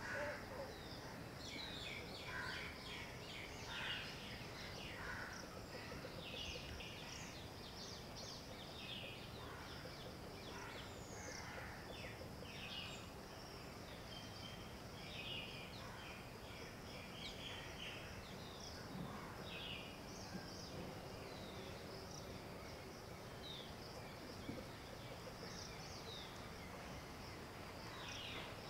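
Quiet outdoor ambience: many short bird calls and chirps scattered throughout, over a steady high insect drone and faint background hiss.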